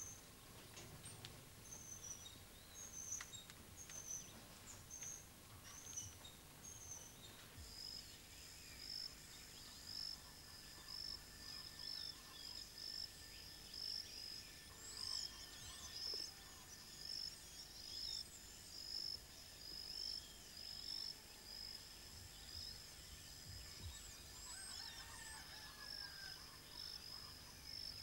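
Faint outdoor ambience of insects and birds: a high insect chirp repeats in a steady pulsing rhythm throughout, with a few birds twittering over it in the middle and near the end.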